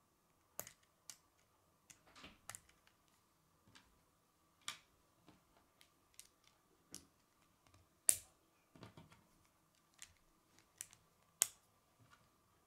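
K'nex plastic rods and connectors clicking as they are handled and snapped together by hand: irregular sharp clicks, the loudest about eight seconds in and again about three seconds later.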